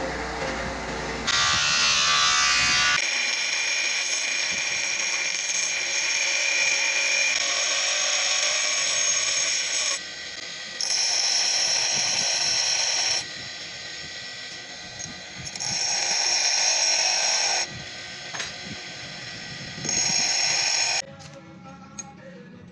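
Electric bench grinder running while a twist drill bit is pressed against its wheel to sharpen it. The sound gets loud in several grinding passes and drops back between them, then turns much quieter near the end.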